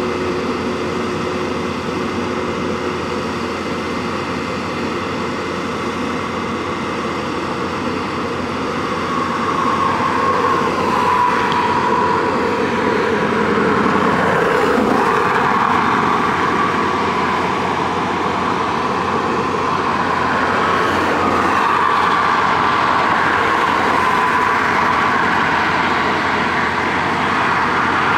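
Steady mechanical drone with a wavering high whine, growing a little louder about ten seconds in.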